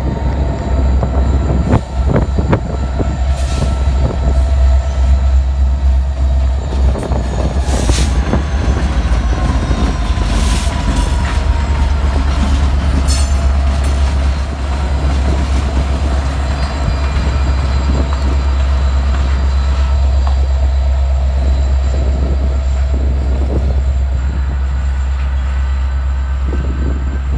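Train of BNSF GP60-series diesel locomotives passing slowly, their engines running with a heavy, steady low rumble. Wheels squeal in thin drawn-out tones, with sharp clicks as the wheels cross rail joints, several times in the first half.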